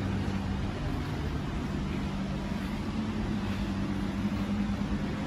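A Ford F-150 Raptor's 3.5-litre twin-turbo V6 idling, a steady low hum.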